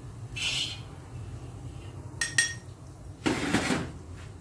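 A metal ladle scraping the inside of a wok, with two sharp clinks a little after two seconds and a longer, louder scrape near the end, as fried bits are scooped out of the oil into a ceramic bowl. A steady low hum runs underneath.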